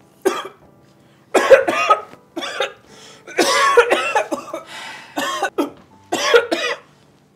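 A man coughing hard in repeated fits, about six bouts, choking on a mouthful of food.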